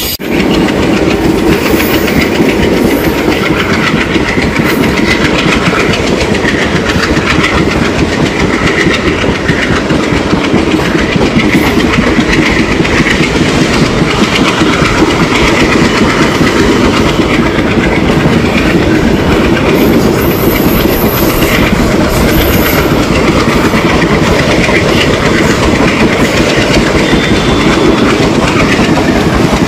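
Running noise of a moving express train's ICF coaches: wheels clattering on the rails over a steady, loud rumble.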